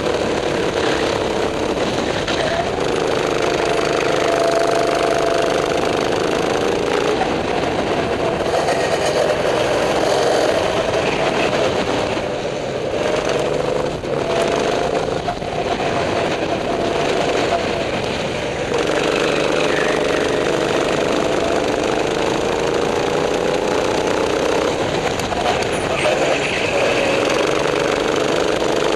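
Go-kart engine heard from the driver's seat on track, its pitch rising again and again as the kart accelerates and dropping as the driver lifts for corners, over a steady hiss.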